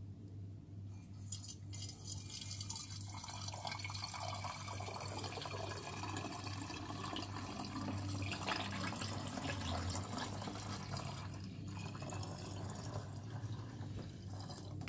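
Homemade candy wine poured in a thin, gentle stream into a clear glass bottle, a steady faint trickle and splash as the bottle fills while the wine is racked off its sediment.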